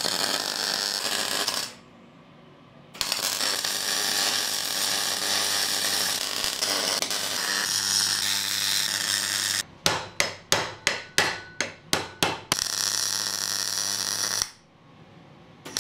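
MIG welder crackling as it welds up the gaps between pie-cut sections of a thin-wall steel exhaust downpipe. It runs in long beads, stops briefly about two seconds in and again near the end, and in the middle comes as a quick series of about ten short bursts. The stop-start welding keeps the arc from blowing through the thin tubing.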